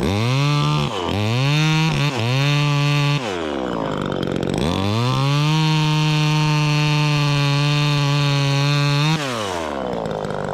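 Chainsaw revved in three short blips, then held at full throttle for about four and a half seconds while cutting through a limb, before dropping back to idle near the end.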